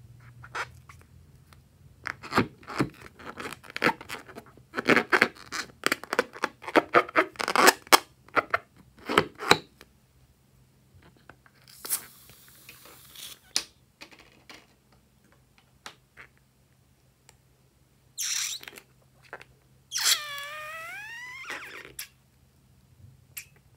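Hands rubbing and squeezing a slime-filled rubber balloon: a dense run of crinkly rubs and clicks, then quieter scraping and a short hiss. Near the end comes a drawn-out squeal whose pitch dips and then rises, as the balloon's neck is stretched open.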